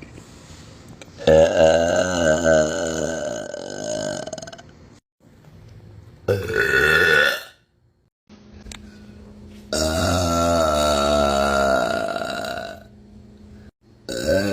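A woman burping: a long burp of about three seconds, a short one of about a second, then another long one of about three seconds, each with a wavering pitch. A fourth burp begins near the end.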